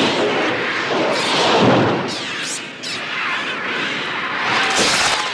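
Electronic bird-attack sound effect from the Mixtur-Trautonium: a dense, loud wash of screeching shrieks and noise, full of quick high pitch sweeps, briefly easing about three seconds in.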